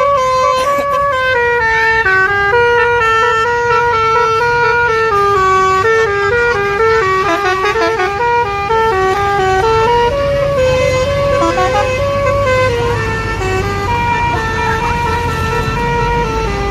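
Indonesian bus 'telolet' horn of the Basuri type, a multi-tone electric horn, playing a tune without pause: a run of held notes stepping up and down every half second or so. A low rumble sounds underneath in the second half.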